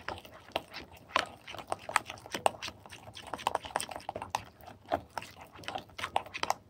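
A spoon stirring a thick, wet spice-and-oil marinade paste in a glass bowl: irregular quick clicks of the spoon against the glass, several a second, mixed with wet squelching of the paste.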